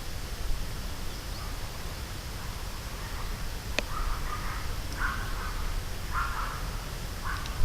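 A crow cawing four times, harsh calls about a second apart, starting about halfway through, over a steady low rumble.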